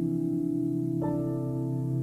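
Ambient background music with sustained, held notes; a new note sets in about a second in.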